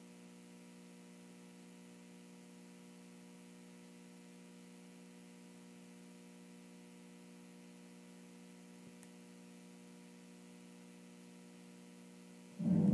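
Faint steady electrical hum, a buzz made of several steady tones. About a second before the end the karaoke backing track starts suddenly and loudly.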